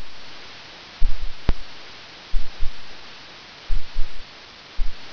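Typing on a computer keyboard heard through a hissy microphone: small clusters of low thumps about once a second, a couple of sharp clicks, over a steady hiss.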